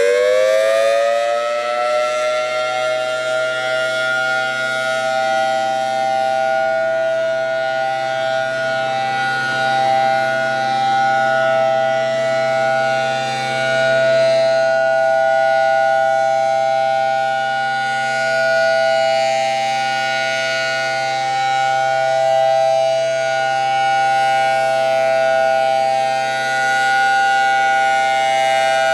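Federal Signal Thunderbolt 1000 outdoor warning siren winding up: the pitch rises over the first few seconds, then holds a loud, steady two-note wail with gentle swells in level. Its chopper is set to level 7.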